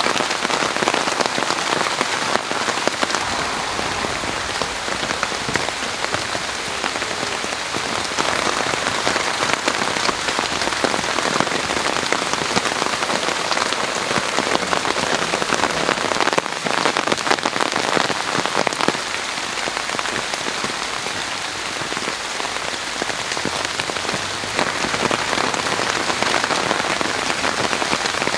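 Steady summer rain falling in a garden, a dense even patter of drops on surfaces with many small individual drop ticks.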